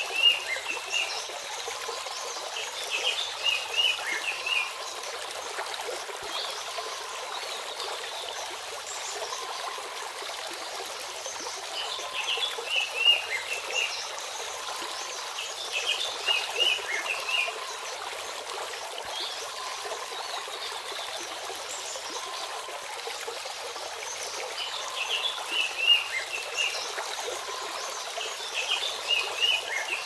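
Shallow forest stream babbling steadily over stones. A bird sings short phrases of quick chirps again and again, a few seconds apart, above the water.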